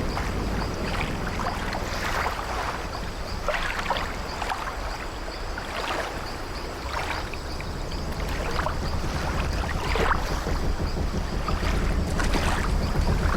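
Old wooden ship's timbers creaking in short strokes a second or so apart, over a steady low wash of sea waves against the hull.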